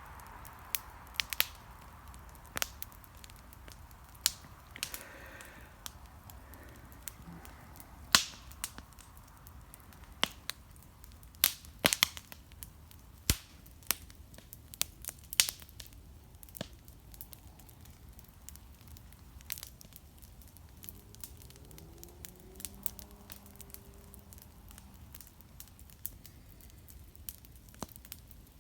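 Wood fire crackling, with sharp, irregular pops and snaps over a low, steady background hiss. The pops are loudest and most frequent between about 8 and 16 seconds in.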